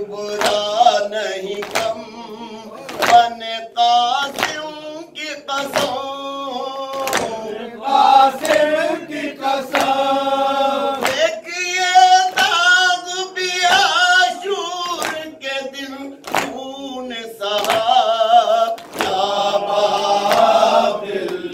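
A group of men chanting a noha (Shia lament) in unison behind a lead reciter, with a steady beat of hands striking chests (matam) about one and a half times a second.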